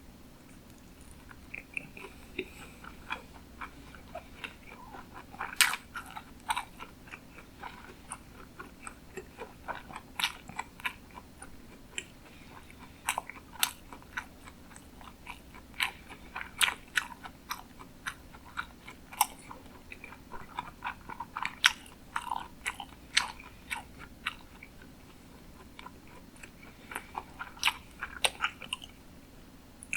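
Close-miked chewing of sushi: irregular sharp mouth clicks and smacks, with a short lull about three quarters of the way through.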